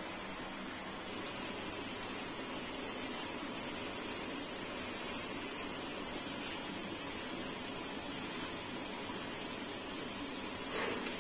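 Steady hiss with a constant high-pitched whine, swelling slightly near the end.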